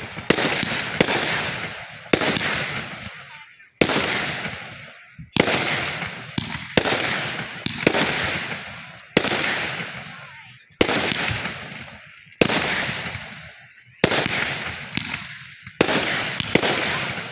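Fireworks going off in steady succession: a sharp bang about every second and a half, each followed by a fading rush of crackle and echo.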